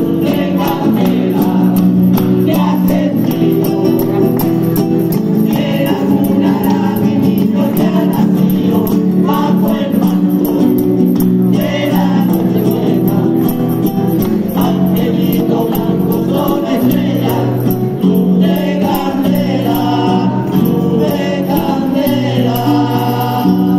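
Andalusian rociero choir of men and women singing together, accompanied by a Spanish acoustic guitar and a jingling tambourine.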